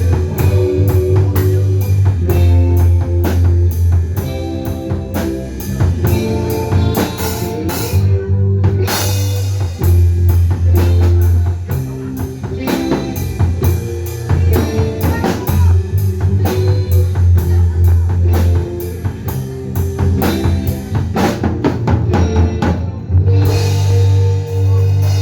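Rock band playing live without vocals: drum kit keeping a steady beat under bass and guitar chords. The cymbals drop out briefly twice, about eight seconds in and again near the end.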